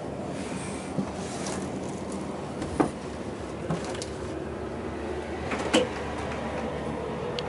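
Handling and movement noise inside a stripped boat cabin: four light knocks and bumps, the sharpest about three seconds in and just before six seconds, over a steady low background hum.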